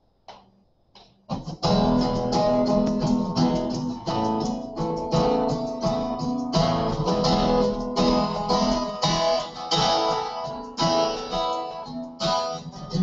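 Two acoustic guitars strummed and picked together, starting about a second and a half in after a brief near-quiet pause: the instrumental intro of a country song before the vocals come in.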